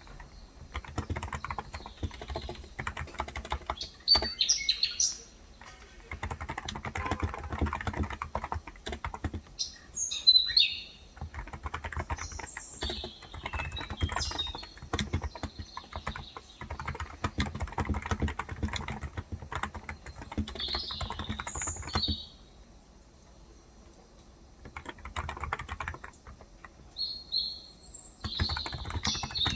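Typing on a Cox Endeavor electrostatic capacitive tenkeyless keyboard with 35 g switches, in runs of keystrokes with a pause of about two seconds a little after the middle. Birds chirp several times in the background.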